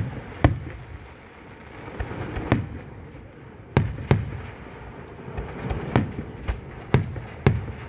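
Aerial firework shells bursting overhead: about ten sharp booms at irregular intervals, some loud and some fainter, each trailing off in a low rumbling echo.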